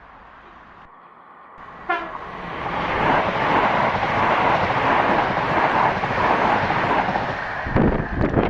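A railway train blows a brief horn blast about two seconds in, then passes close by with a loud, steady rush of wheels and rail noise, with low knocks from the wheels near the end.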